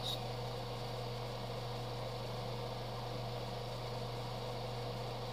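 An electric motor running steadily, giving a low, even hum with a hiss over it.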